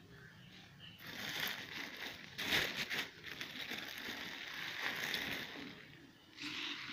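Loose fresh rose petals rustling and crunching softly as they are scooped up by hand and pushed into a glass jar, loudest about two and a half seconds in.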